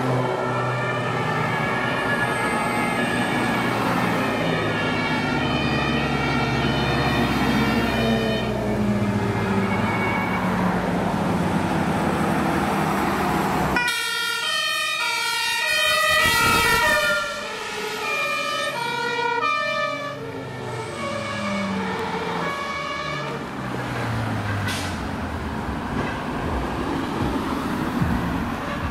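German fire engines' two-tone sirens (Martinshorn) alternating between two pitches, several overlapping, with truck engines as a convoy drives past. About 14 s in the sound cuts to a single vehicle's two-tone siren that drops in pitch as it passes.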